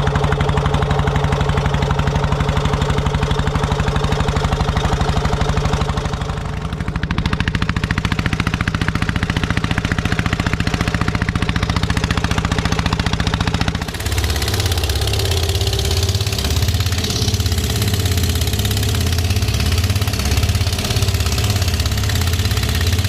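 An engine running steadily at an even speed. About 14 seconds in, its sound changes abruptly to a lower, pulsing run.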